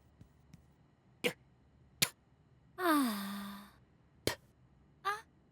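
Cartoon character's voice giving a long 'aah' that falls in pitch and then holds, with three single sharp clicks around it.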